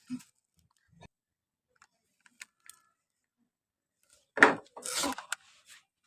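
A person's single loud hiccup about four and a half seconds in, brought on by eating a hot raw green chilli, followed by a short breathy hiss. A few faint clicks come before it.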